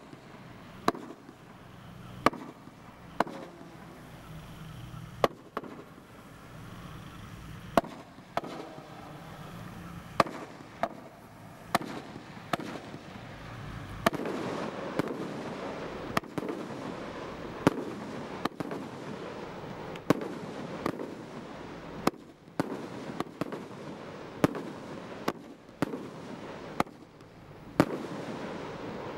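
Bright Star 'Satanic Desecration' 200-shot barrage cake firing: a steady run of sharp shell-burst reports, about one a second, coming a little faster in the second half. From about halfway a continuous crackle of bursting stars fills the gaps between reports.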